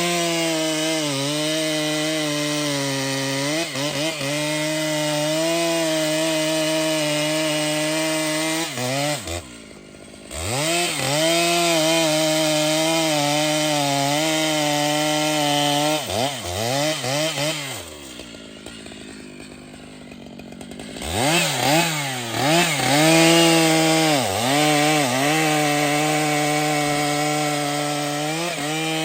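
Large two-stroke chainsaw cutting through a big tree at full throttle, its engine note dipping again and again as the chain bites. It falls to a low idle briefly about ten seconds in and again for a few seconds past the middle, then revs back up into the cut.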